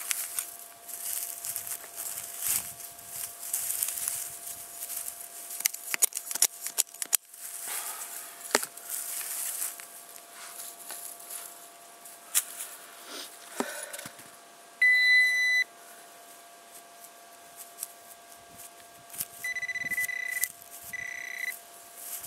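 Trowel scraping and digging in dry grassy soil, with a quick run of sharp clicks, then a metal-detecting pinpointer giving one loud steady beep about two thirds of the way in and two shorter beeps near the end, signalling metal in the loosened soil.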